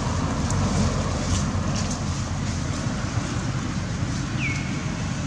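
Wind on the microphone: a steady low rumble with hiss over it. A single short high chirp, falling and then holding, about four and a half seconds in.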